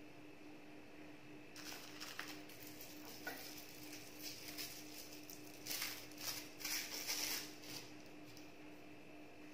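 Light plastic crinkling and rustling as hands pick imitation crab sticks off a plastic bag and tear them into strips. It starts a second or two in and is loudest in a cluster about six seconds in, over a faint steady hum.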